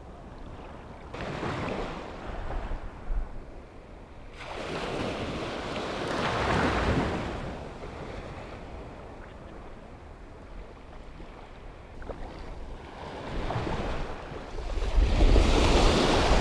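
Small sea waves breaking and washing through shallow water around a wading angler, coming in three swelling surges, the last and loudest near the end.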